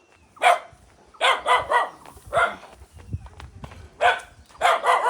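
A dog barking repeatedly: single barks and quick runs of three or four, with the densest run near the end.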